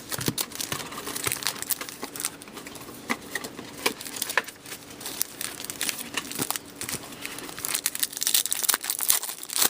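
Plastic trading-card wrapping crinkling and tearing in irregular crackles as a box of hockey card packs is unwrapped and opened.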